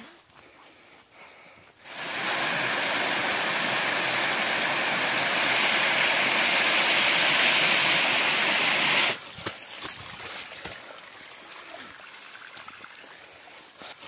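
Small forest waterfall rushing loudly over rocks, coming in sharply about two seconds in and cutting off abruptly about nine seconds in. After that comes softer rushing water with scattered light knocks.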